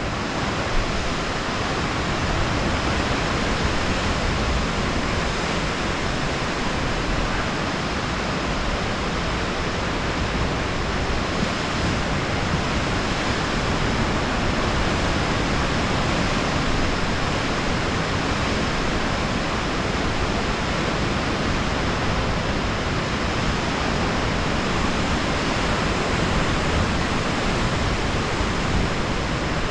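Ocean surf breaking against the rocks and sea stacks below, a steady, even rushing noise.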